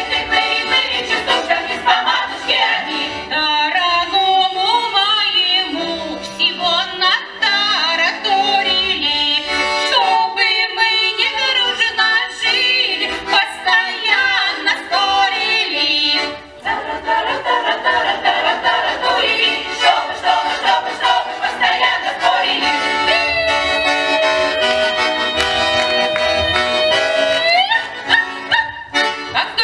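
Women's folk choir singing a Russian song in full voice to accordion accompaniment. Near the end the voices hold one long note that sweeps upward as it breaks off.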